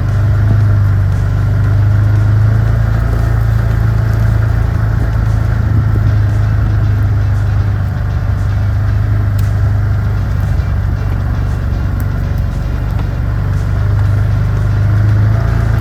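Chinese mini excavator's engine running steadily at a constant pitch, swelling slightly in level now and then as it works.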